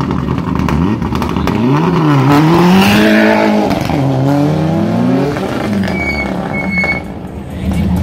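Mitsubishi Lancer Evolution rally car's turbocharged four-cylinder engine launching from the start line at full throttle. It revs up, drops in pitch at each upshift twice, and fades as the car climbs away up the road.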